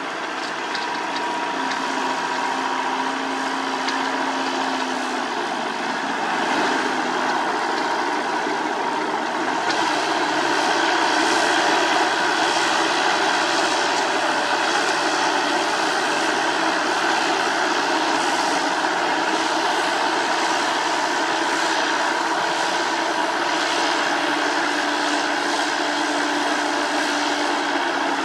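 Heavy road-paving machinery running steadily: a continuous engine drone with a hissing, rushing noise over it, growing louder about ten seconds in.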